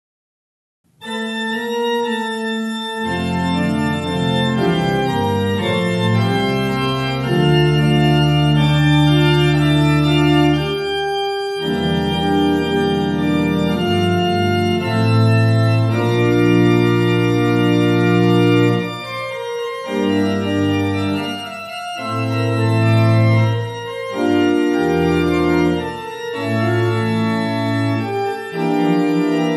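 Organ playing slow, sustained chords, starting about a second in; deep bass notes join about three seconds in.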